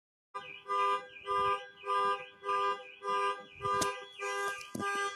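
Car alarm sounding: a pitched electronic tone that pulses evenly, a little under two pulses a second, with a sharp click about four seconds in.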